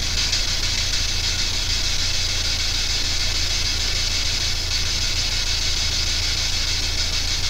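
Steady electronic static hiss with a constant low hum beneath it.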